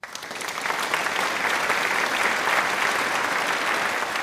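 Crowd applauding: a dense, steady patter of many hands clapping that swells in over the first second.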